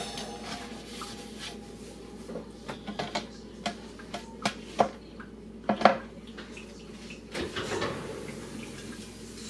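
Kitchen clatter: scattered light clicks and knocks of things being handled on a counter, with the loudest knocks about six seconds in and a short rustle soon after.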